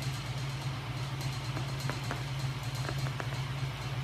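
Shop-built machine of small DC electric motors driving flywheels and shafts, running with a steady low hum and a few faint ticks around the middle.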